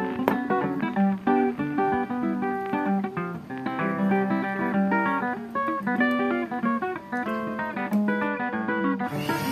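Background music: a plucked acoustic guitar playing a melody of quick single notes.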